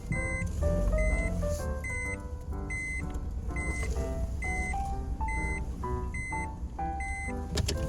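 Background music: a melodic tune over a steady low bass, with a short, high beep-like note repeating about once a second. A few sharp clicks come near the end.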